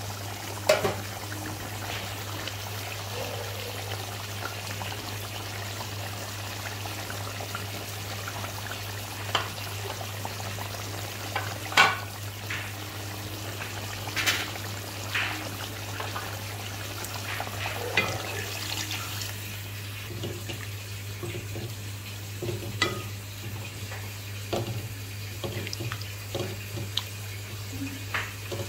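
Beef curry broth boiling hard in a metal pot, bubbling with a steady wash of sound over a low hum, broken by a scattering of sharp clicks and pops.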